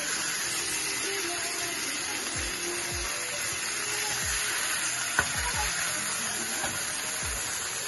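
Filet mignon steaks searing in oil in a frying pan, a steady sizzle, as tongs turn them. A single sharp click comes about five seconds in.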